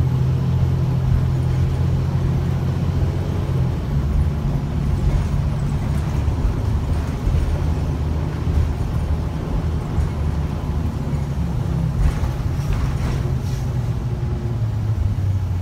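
Gillig BRT transit bus running under way, heard from inside the passenger cabin: a steady low engine and drivetrain hum over road noise. The hum shifts in pitch about four seconds in and again near the end, with a brief light rattle a little before the end.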